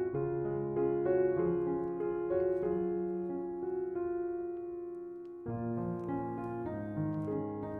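Background piano music, slow held notes and chords.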